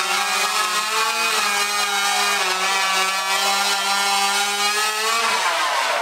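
Gas chainsaws cutting through logs, the engine note held steady under load, then falling away about five seconds in as the cut finishes and the saw is lifted clear.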